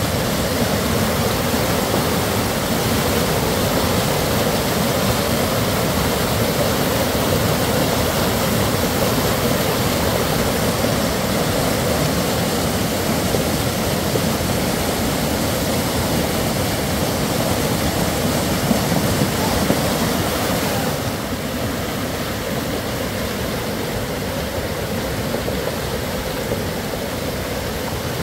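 Muddy floodwater rushing in a steady torrent, a little quieter about three quarters of the way through.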